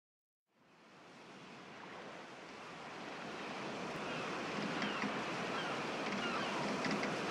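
Sea waves washing in, an even rushing that fades in from silence and grows steadily louder, with faint high gliding cries over it from about halfway through.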